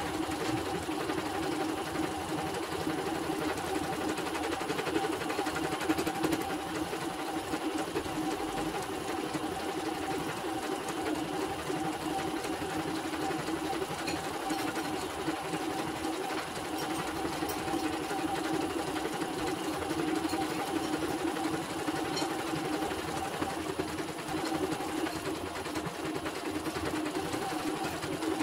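CNY portable computerized embroidery machine stitching out a design, its needle mechanism running at a steady rapid pace.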